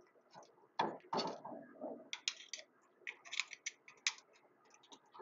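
Screwdriver prying at the rear PTO output assembly of an Allis Chalmers 616: irregular metal clicks, taps and scrapes, a few a second, as the stuck assembly refuses to come out.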